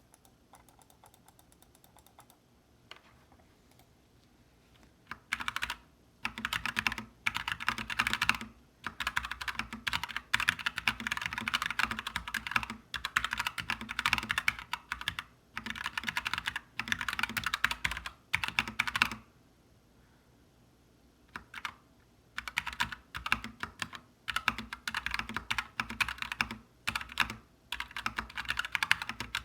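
Typing on a GMMK mechanical keyboard with Gateron Black linear switches and ABS doubleshot keycaps. Fast runs of keystrokes begin about five seconds in, after a few faint clicks, and stop for about two seconds around two-thirds of the way through before starting again.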